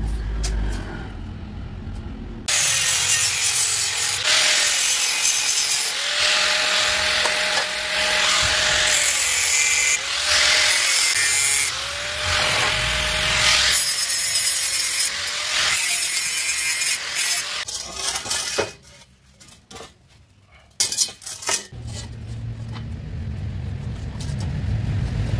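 Angle grinder with an abrasive cut-off disc cutting through square steel tube in several passes. Its motor whine sags as the disc bites, then stops about three quarters of the way through, followed by a few knocks.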